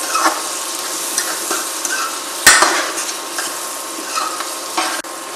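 Chopped onions and mustard seeds frying in butter in a kadhai, sizzling steadily while a metal spatula stirs and scrapes through them. A sharp clink of the spatula against the pan about two and a half seconds in.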